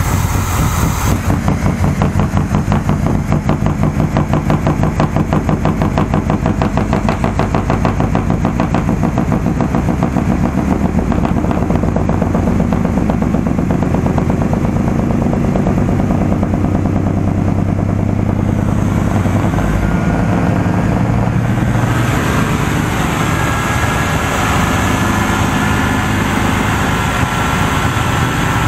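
Carbureted engine of a 1983 GMC K15 pickup with a Rochester Quadrajet running at a fast idle with an even, rapid pulse, on its cold-engine fast-idle circuit while the idle speed screw is being turned up. About three quarters of the way in the sound turns brighter and higher.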